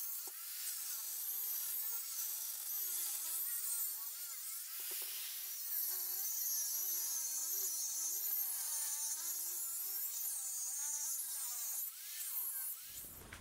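Angle grinder cutting through the cast metal case of a quad's engine and transmission unit, a steady grinding whine that wavers in pitch as the disc bites. It stops shortly before the end.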